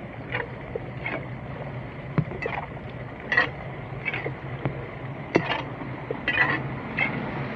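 Repeated short splashes and scrapes in shallow floodwater, about one a second, as leaves and debris are raked or scooped out of a blocked street drain, over a steady low hum.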